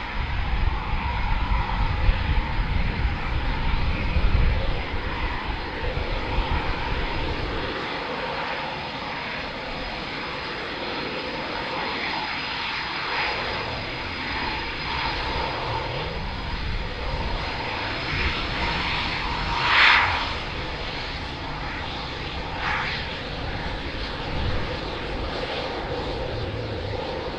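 Eurofighter Typhoon's twin EJ200 jet engines running at taxi power: a steady rush with a thin high turbine whine. There is a brief louder swell about twenty seconds in.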